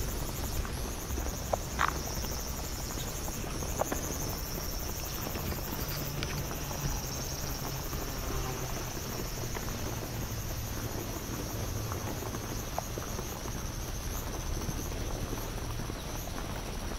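Steady high-pitched drone of cicadas in the trees, with a few faint sharp clicks now and then.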